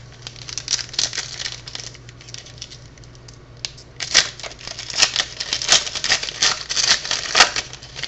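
Hockey trading cards being handled, sliding and flicking against one another in a run of crisp clicks and rustles. The clicks come thicker and louder from about halfway through.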